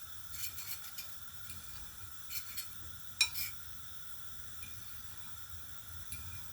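A utensil clinking and scraping against a dish every so often while egg is stirred into breadcrumbs, the sharpest clink a little past the middle.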